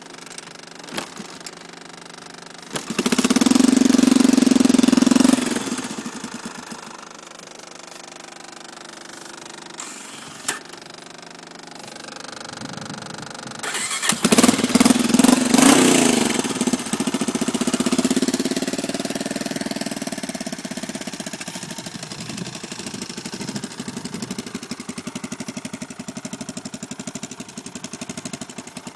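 Single-cylinder four-stroke engine of a 1986 Honda FourTrax 350 4x4 ATV idling, revved up twice for a few seconds each time, then settling back to a steady idle.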